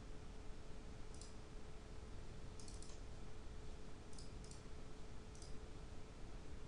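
Computer mouse buttons clicking: one click about a second in, a quick run of three or so a little later, then two more and a last one past the middle. A steady hiss and a faint hum run underneath.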